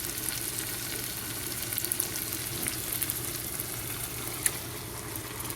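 Washed basmati rice sizzling in hot oil with fried onion and tomato in a cooking pot as it is added and stirred, with scattered crackles and an occasional click of the spoon, over a steady low hum.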